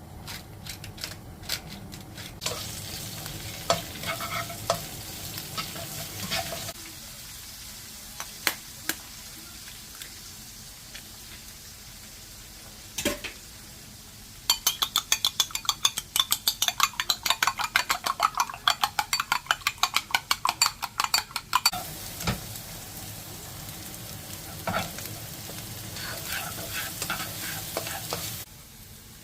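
Egg, wood ear mushroom and tofu fried rice sizzling in a pan while it is stir-fried, with a utensil scraping and clacking against the pan. About halfway through comes a run of rapid clacks, several a second, lasting about seven seconds.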